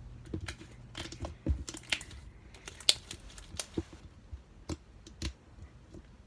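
Matte slime being squished and worked by hand, giving off irregular sharp clicks and pops, the loudest about three seconds in.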